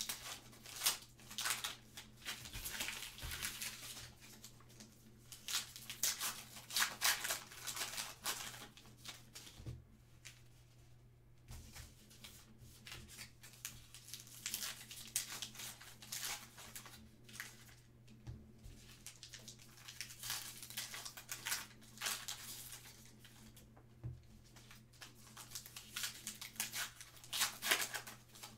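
Trading card pack wrapper crinkling and tearing as it is opened by hand, in repeated bursts with short pauses between them.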